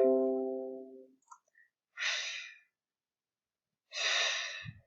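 A person voicing the consonant /f/ on its own: a breathy hiss of about half a second, heard three times about two seconds apart. The first hiss ends just after the start. A short ringing musical tone sounds with it and dies away within about a second.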